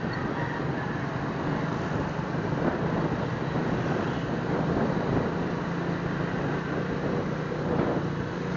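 Suzuki Smash 115 motorcycle's small single-cylinder four-stroke engine running at a steady pace while riding, under a constant rush of road and wind noise.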